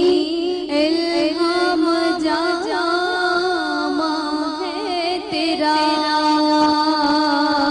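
A woman singing solo into a microphone: long held notes with wavering, ornamented turns and short breaks between phrases.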